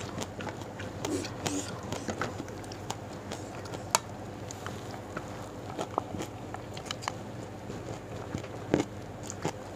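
Eating with the hands: fingers mixing rice and sambal lenca on a plate, then putting a mouthful in and chewing, heard as scattered small clicks and crackles over a low background.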